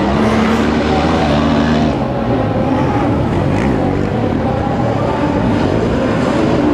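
Sidecar motocross outfits racing, several engines revving hard together and shifting pitch as the riders work the throttle.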